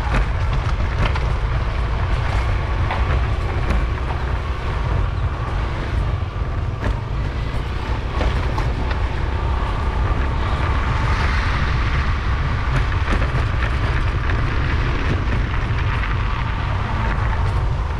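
Motor scooter riding over a rough gravel lane: a steady low wind rumble on the microphone over the engine's hum, with frequent sharp clicks and knocks from the tyres and bodywork on the stones.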